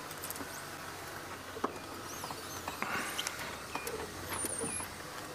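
Outdoor bush ambience: faint, wavering high-pitched chirps twice, scattered small clicks and rustles, over a low steady hum.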